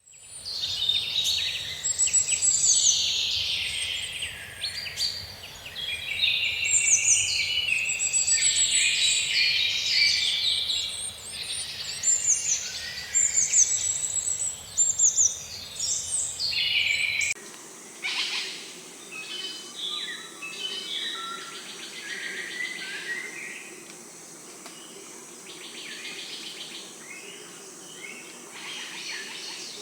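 A dense chorus of many birds chirping, trilling and calling at once. About two-thirds of the way in it cuts abruptly to a quieter, sparser mix of scattered bird calls.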